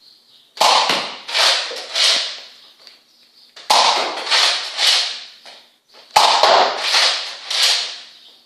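Nerf Rival blaster firing its foam balls three times, about three seconds apart; each sharp shot is followed by a short run of fading knocks.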